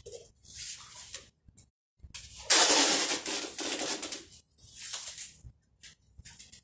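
Scraping and rustling noises from hands working on a tape-wrapped cardboard shipping box, in a few short bursts, the loudest starting about two and a half seconds in and lasting nearly two seconds.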